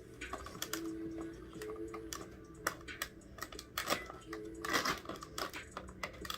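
Light, irregular clicks, taps and a brief scrape of hands and a pocket knife working at packing tape on a cardboard box, with a faint hum underneath.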